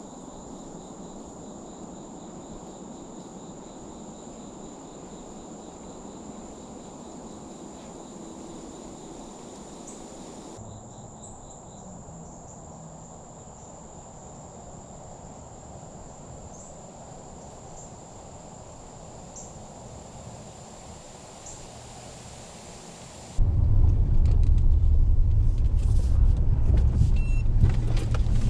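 Quiet woods with a thin, steady high-pitched tone, then near the end a sudden switch to the loud low rumble of a pickup truck driving on a dirt farm track, heard from inside the cab, with scattered ticks and knocks.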